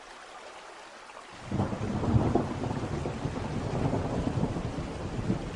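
Thunderstorm: a faint hiss of rain, then a long low rumble of thunder swells in about a second and a half in and keeps rolling.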